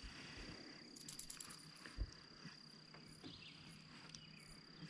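Near-silent outdoor ambience on the water: a faint, steady high-pitched tone runs throughout, with a few faint clicks about a second in and a single light low knock about two seconds in.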